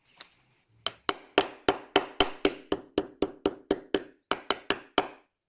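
Small hammer tapping a pin through a Martini rifle's action to hold the extractor in place: a quick run of about seventeen light taps, roughly four a second, starting about a second in.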